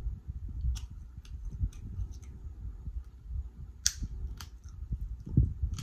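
Close-miked chewing of shellfish meat: a soft, low, continuous mouth sound broken by sharp wet mouth clicks and lip smacks, about seven in all, the loudest about four seconds in.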